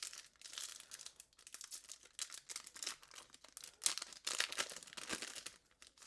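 Foil Pokémon card booster pack wrapper crinkling and being torn open, an irregular run of crackles and rips with sharper bursts about four seconds in.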